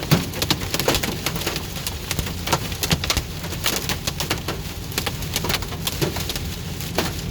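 Hailstones pelting a moving vehicle: a dense, irregular rattle of sharp hits on the roof and glass, over the steady low rumble of the car on the road.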